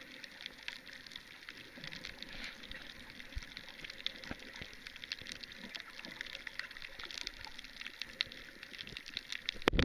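Underwater ambience heard through a camera below the surface: a steady hiss with dense, faint crackling and clicking.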